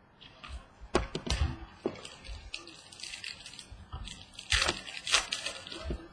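Trading cards being handled: a cluster of sharp taps and clicks about a second in, then a short burst of crackly rustling and scraping past the middle.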